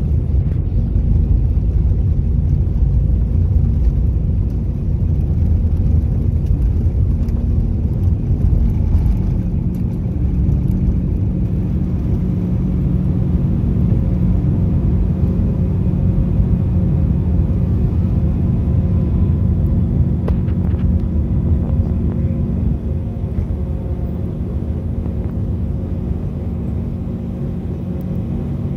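Cabin noise of an Airbus A319 on takeoff: its jet engines at takeoff thrust over the rumble of the wheels on the runway. The rumble drops away about ten seconds in as the airliner lifts off, leaving a steady engine drone through the climb.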